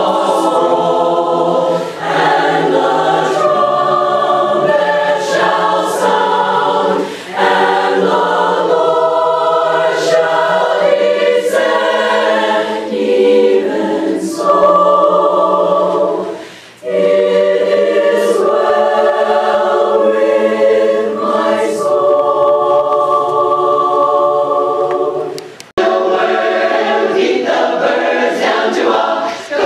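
Women's chorus singing together in held chords, with a few short breaks between phrases.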